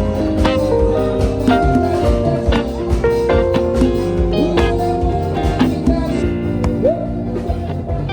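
Background music: an instrumental track with guitar, held chords and a steady beat.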